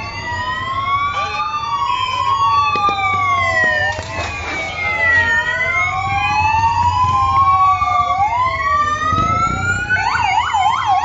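Several police sirens wailing at once, their tones rising and falling slowly and out of step with one another, over a low engine rumble. Near the end one siren switches to a fast yelp.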